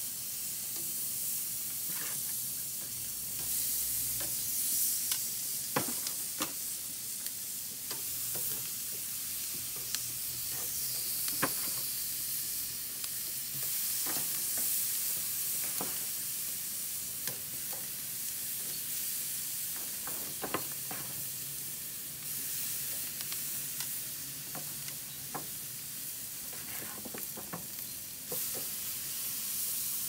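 Chicken leg quarters sizzling on a hot charcoal grill grate: a steady hiss. Irregular sharp clicks come as the metal tongs knock against the grate and the pan while more pieces are laid down.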